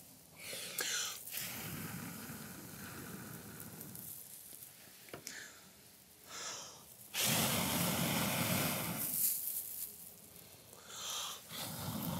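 A person blowing in long breaths into a smoking tinder bundle to fan a glowing chaga ember into flame: several rushes of air with short pauses for breath between them, the longest and loudest about seven seconds in.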